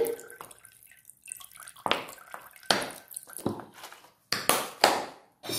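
Vinegar poured from a bottle into a glass bowl of water, splashing in about six short spurts.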